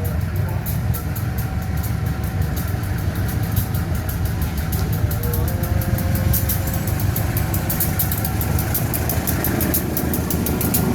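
Motor vehicle engines idling with a steady low rumble, under a fast, even ticking.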